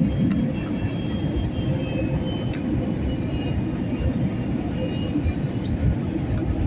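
Steady cabin noise of a jet airliner: a continuous low rumble with a faint hum and a few light clicks.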